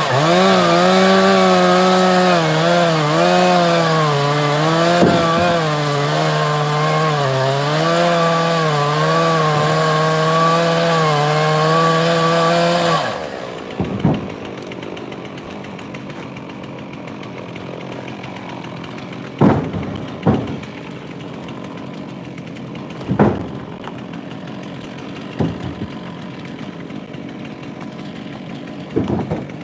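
A Stihl two-stroke chainsaw cutting honey locust under load, its pitch wavering as the chain bites, then winding down and shutting off about halfway through. After that come several separate heavy thuds of wood rounds being tossed.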